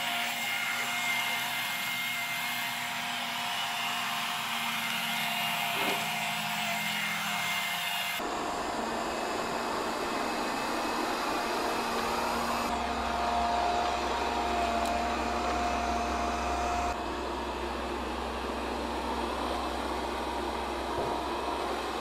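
Ecovacs Deebot robot vacuum running steadily, a continuous motor and suction whir. The sound shifts abruptly a few times.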